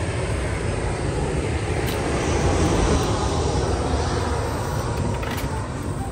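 Steady low rumbling noise that swells to a peak about halfway through and eases off. A folding camp chair being opened gives a couple of light clicks.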